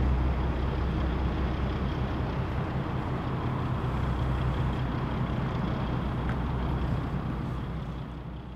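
Diesel engine of a 155-ton purse-seine fishing boat running at speed as it passes close by, a steady low drone with the rush of its bow wave and wake. The drone weakens as the boat moves away, and everything fades out near the end.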